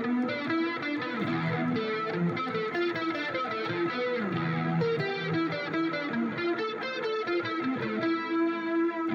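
A 'phased pad' instrument sound being tested: a line of notes played continuously, its tone swept and swirling from a phaser effect.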